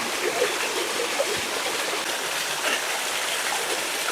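Waterfall in a forest, its water falling and splashing over rocks in a steady rush.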